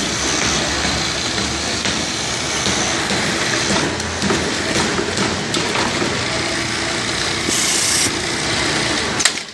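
Automated industrial sewing machine running with a steady, dense mechanical din. About seven and a half seconds in comes a short, loud hiss. A sharp click follows just before the sound drops away.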